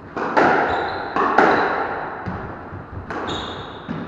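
Squash ball struck by rackets and smacking off the court walls and floor, sharp hits with echo in the enclosed court: two quick pairs of hits, then one more about three seconds in.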